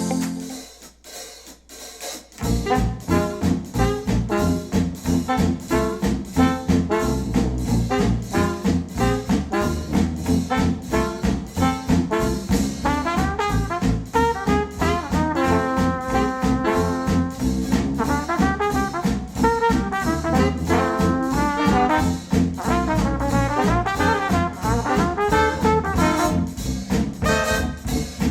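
Brass-led jazzy instrumental music with a steady drum beat, played back through Focal Chora 806 bookshelf speakers driven by a NAD C 328 integrated amplifier. The track starts after a brief quieter gap about two seconds in.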